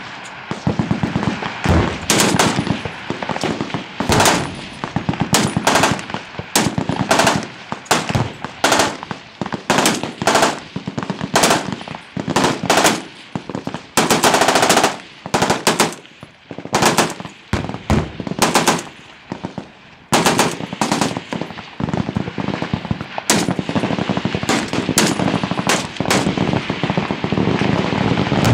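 Automatic gunfire from several guns on a firing line: rapid bursts and single shots overlap with little pause, and one long unbroken burst comes about halfway through.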